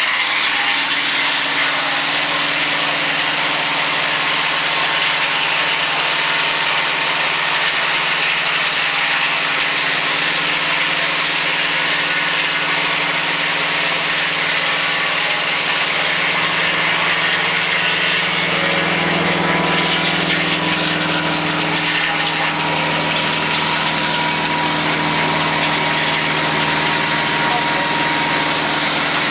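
Mobile sawmill with a double edger running steadily: a constant engine note under a dense, even high hiss. Around two-thirds of the way in the low engine note swells for a few seconds while the top end dips, then settles back.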